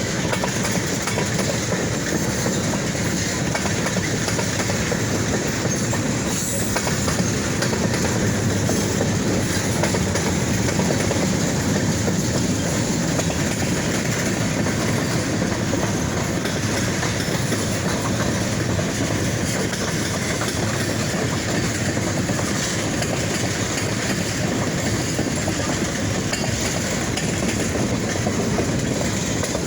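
Freight train cars rolling past at a steady, even level, their wheels clattering on the rails.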